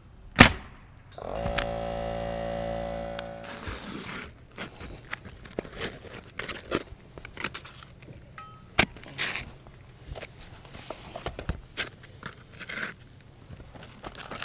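A sharp knock, then a cordless drill runs at a steady pitch for about two and a half seconds, driving a screw into the metal roofing. After it come scattered taps, scrapes and footsteps on the sheet-metal roof.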